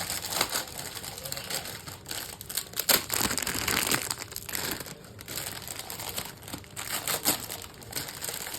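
Plastic instant-noodle packaging crinkling as it is handled, an irregular crackle that is loudest about three seconds in.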